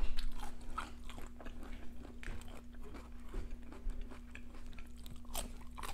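Close-miked crunching and chewing of crisp raw vegetables, a rapid run of sharp crunches, loudest in the first half second. A faint steady hum sits underneath.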